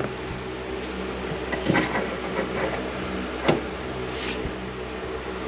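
Steady low mechanical hum in a garage, with a few light knocks and a brief hiss as auto parts are handled.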